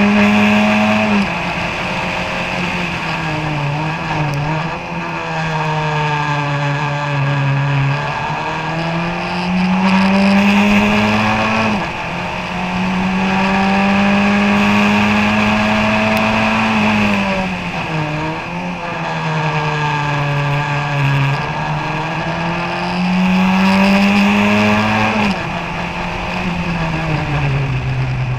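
Ford Kent 1.6-litre four-cylinder engine of a Formula Ford 1600 race car heard on board, held at high revs, then dropping sharply in pitch as the driver lifts for corners, with brief blips while changing down, and climbing again under acceleration, several times over.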